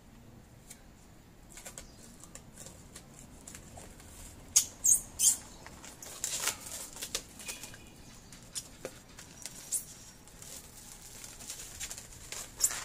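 Plastic cling film being pulled off its roll and wound around a tree stump's trunk: a run of crinkling, crackling rustles, with a few sharper, louder crackles near the middle.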